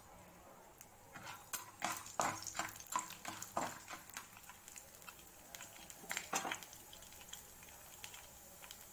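Slotted spatula stirring peanuts and dals through hot oil in a non-stick kadai: a quick run of scrapes and light knocks over a few seconds, then another scrape a little later.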